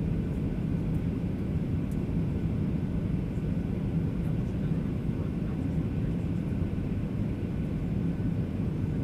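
Steady low rumble of a Boeing 737-800 in flight, its engines and airflow heard from inside the passenger cabin, with a faint steady hum.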